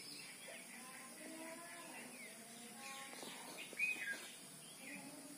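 Birds chirping faintly: scattered short calls, the loudest a pair of quick chirps about four seconds in.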